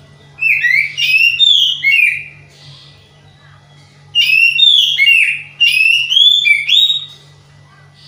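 Oriental magpie-robin (kacer) singing two loud bursts of clear whistled phrases, each a quick run of rising and falling notes, with a pause of about two seconds between them. The keeper takes this for the song of a bird in full voice but lacking breeding drive (kurang birahi), so its phrases stay monotonous.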